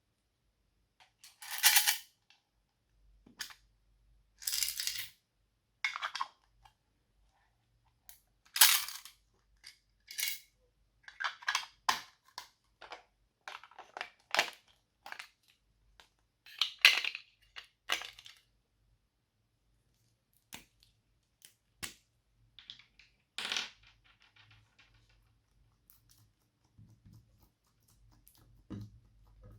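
Slime being squeezed and poked by hand, giving irregular bursts of sharp crackling pops and squelches, some loud, with fainter ticks in the last few seconds.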